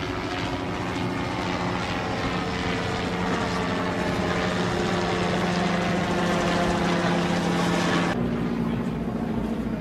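Propeller aircraft engine droning steadily and growing slightly louder, cutting off suddenly about eight seconds in.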